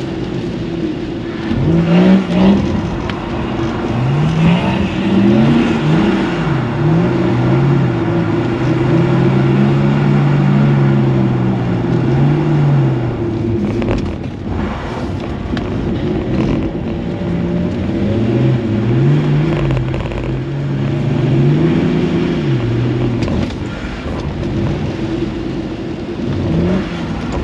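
BMW 330d three-litre straight-six turbodiesel heard from inside the cabin, revving up and falling back again and again under hard driving, over a steady drone.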